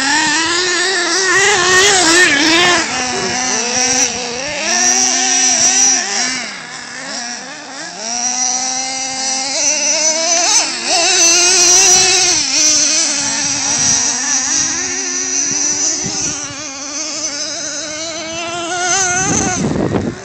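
Small nitro (glow-fuel) engines of radio-controlled trucks running hard, their high-pitched buzz rising and falling as the trucks accelerate and ease off across grass.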